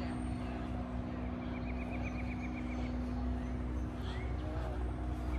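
A steady mechanical hum with low rumble underneath, over which a bird gives one rapid trill about a second and a half in and a short rising chirp near the end.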